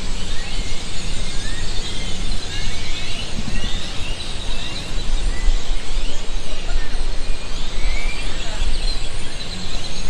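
Many short chirps from a flock of birds in the trees overlap several times a second, over a steady low rumble.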